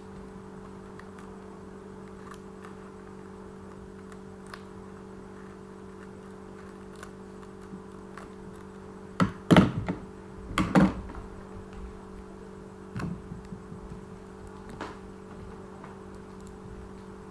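A steady low hum with scattered knocks and taps of things being handled, the loudest a cluster of thuds about nine to eleven seconds in.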